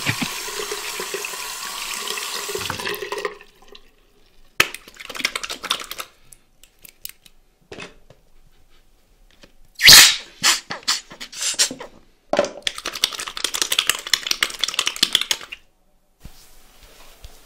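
Water from a bathroom tap running into a sink and splashing over hands being washed. It comes in several stretches with short quiet gaps, with one loud splash about ten seconds in.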